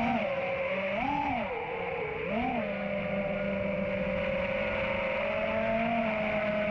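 FPV racing quadcopter motors whining, the pitch swelling up and back down three times with quick throttle punches in the first few seconds, then holding a steady whine.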